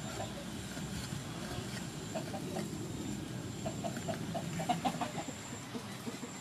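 A chicken clucking in quick runs of short notes, a few about two seconds in and a longer run from about three and a half to five seconds in, over a low steady background.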